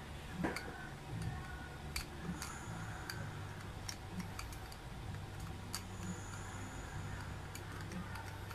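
Light, irregular plastic clicks and ticks as the clear ring of a ring maze puzzle is twisted and slid along the ridged plastic maze cylinder, its inner peg catching in the maze grooves, over a low steady hum.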